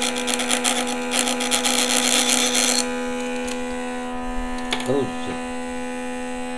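Small electric motor rig humming steadily with a constant electrical tone. For the first three seconds a loud scraping, rubbing noise lies over the hum, then stops.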